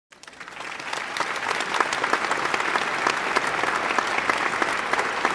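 Audience applause, swelling up over the first second and then holding steady.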